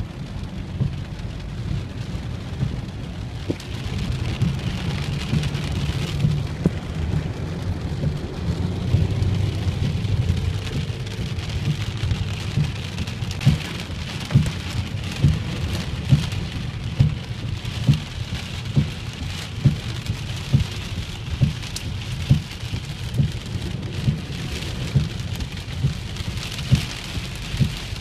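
Heavy rain pelting down, with a low steady rumble underneath, heard from inside a car driving through it. From about halfway a short regular thump comes in, a little faster than once a second.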